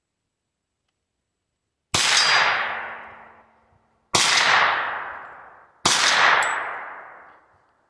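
Three gunshots from a Hi-Point 995 9mm carbine fitted with a muzzle brake, roughly two seconds apart, the first about two seconds in. Each sharp report is followed by a long echo that dies away over about two seconds.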